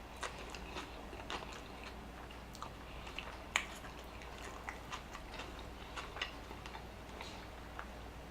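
Close-miked chewing of a Burger King Whopper: irregular wet smacks and soft crackles of food between the teeth, the sharpest about three and a half seconds in.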